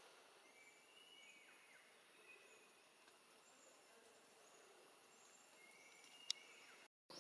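Faint forest background: a steady high insect drone with a few faint short chirps. There is a single sharp click about six seconds in, and the sound cuts out for a moment near the end.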